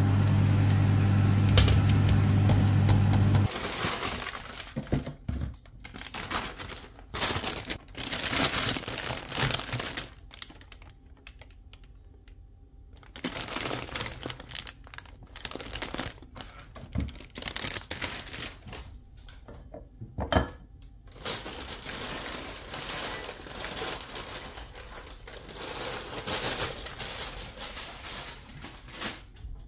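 A steady low hum that stops a few seconds in, then irregular kitchen handling noises: crinkly rustling of corn flakes poured from the box into a bowl, with light knocks of dishes and utensils.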